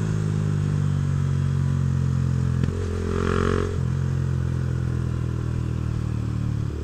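Honda CB Twister's single-cylinder 250 cc engine running steadily through a Protork Mine 3 sport exhaust while riding, with a short change in the note about three seconds in.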